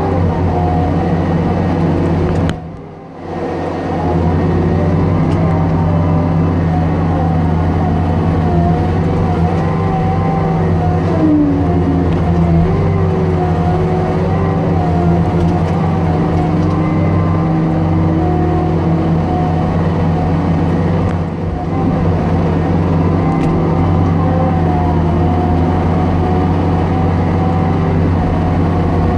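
Timberpro TL745C feller buncher running under work with its 24-inch hot saw head: a steady low diesel drone with a wavering whine above it, dropping away briefly about three seconds in.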